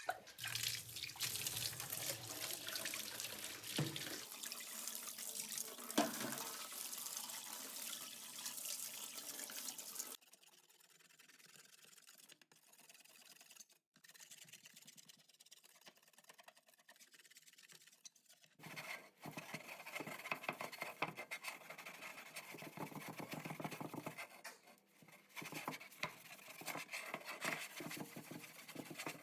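A tap running into a sink for about ten seconds, then stopping, followed after a quieter spell by busier scraping and handling sounds.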